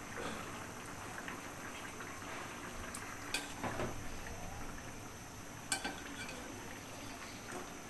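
Rita fish curry simmering in an aluminium karahi over a gas flame, a steady bubbling, with two sharp clicks of a spatula against the pan, about three and a half seconds in and near six seconds in.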